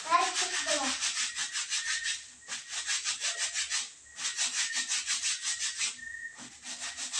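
Wet clothes being scrubbed by hand, fabric rubbed hard against fabric in quick scratchy strokes, about six a second, in runs of about two seconds with short pauses between.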